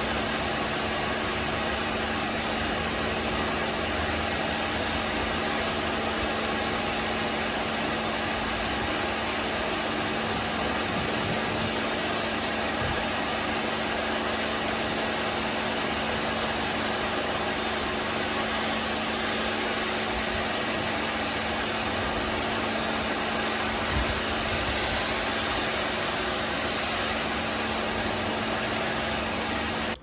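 Pressure washer running steadily: the pump's even hum under the hiss of the water jet rinsing foam off a car's paintwork.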